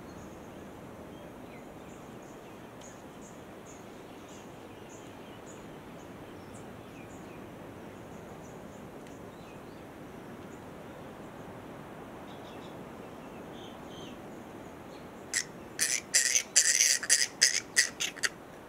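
Faint high chirps over a steady outdoor hiss, then, about three-quarters of the way in, a loud run of about a dozen short, harsh squawks over some three seconds from a fruit bat feeding in the tree.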